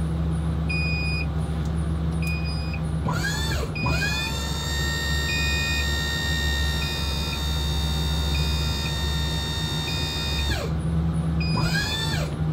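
A motorhome's hydraulic leveling-jack pump whines as it spins up about three seconds in, runs at a steady pitch, and winds down after about ten seconds, then starts up briefly again near the end while the jacks lower. Underneath there is a steady low hum and a short warning beep repeating about once a second.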